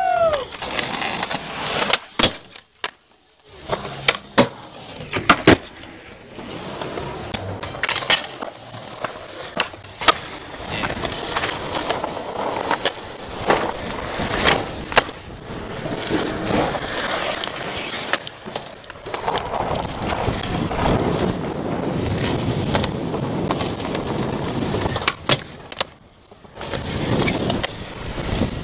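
Skateboard wheels rolling over concrete, with repeated sharp clacks of the board striking the ground. There is a brief break in the sound about three seconds in.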